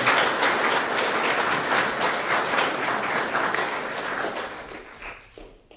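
Audience applauding, many hands clapping at once; the applause thins out and dies away near the end.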